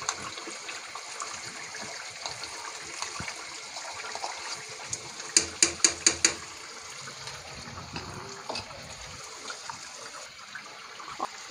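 Chicken korma sizzling and bubbling in a frying pan as browned onion paste is added and stirred in. A little past the middle, about five sharp taps of a spoon come in quick succession.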